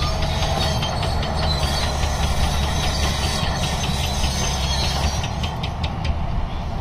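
Diesel crawler bulldozer running and moving, its engine a steady low drone under the rapid, regular clanking and squealing of its steel tracks. The clanks get sharper after about five seconds.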